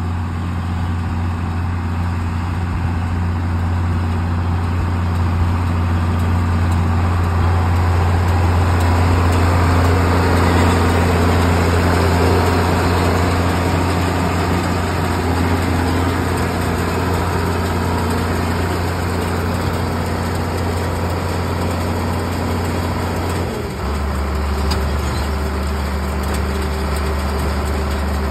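John Deere 4430's six-cylinder turbo diesel running steadily under load, pulling a round baler that is picking up and baling hay, with the clatter of the baler mixed in. About 23 seconds in the engine note drops to a lower steady pitch as the tractor comes to a stop with a full bale.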